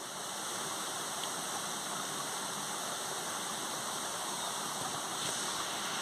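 Steady rush of running water, even and without a clear rhythm.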